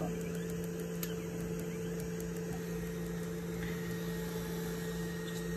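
Steady hum from a Longer LK1 3D printer's cooling fans and motors, running evenly with two fixed low tones.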